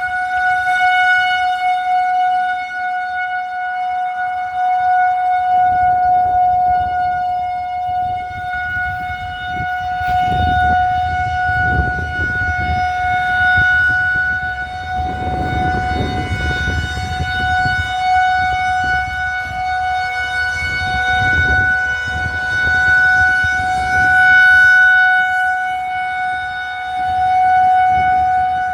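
Federal Signal 2001-130 rotating electromechanical tornado siren sounding a steady single-tone alert at full speed during a test. It holds one pitch with strong overtones, and its loudness swells and fades as the head turns. A low rumble comes and goes beneath it.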